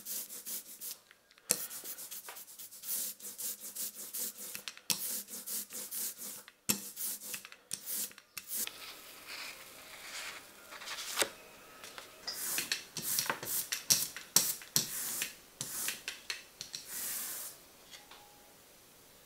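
Close-up scratchy rubbing and scraping strokes of hand tools working a rubber printing block: short separate strokes at first, then denser and more continuous from about halfway.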